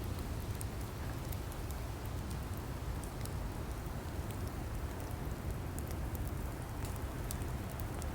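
Burning logs in a wood fire: a steady low rush with scattered sharp crackles and pops throughout.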